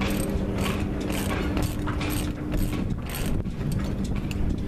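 Socket ratchet clicking in repeated strokes, about two a second, as it turns the nut on a threaded-rod bearing press, drawing the old strut bearing out of a sailboat's propeller-shaft strut. A steady low hum runs underneath.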